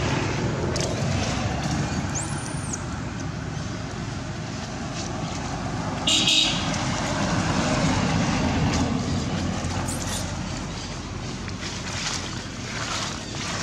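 Steady outdoor rumble like road traffic, with a thin high chirp a couple of seconds in and a short, loud, high-pitched squeal about six seconds in.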